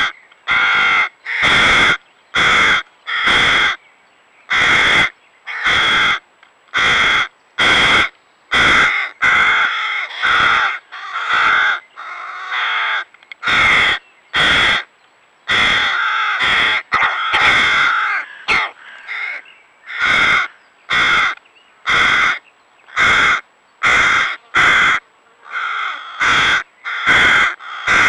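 Fledgling hooded crows begging for food with loud, harsh, repeated caws, about one to two a second. In places several birds call over one another.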